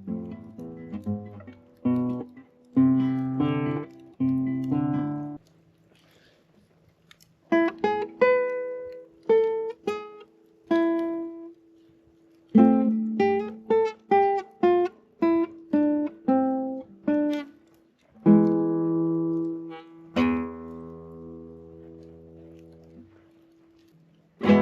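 Acoustic guitar playing. A few strummed chords come first, then a short pause, then a run of single picked notes, and it ends on two chords left to ring out and fade.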